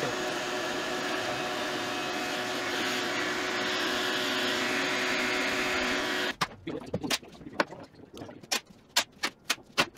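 A steady motor whir with rushing air noise that cuts off suddenly a little over six seconds in. A quick, irregular series of sharp wooden knocks and clicks follows as the walnut slabs are handled on the workbench.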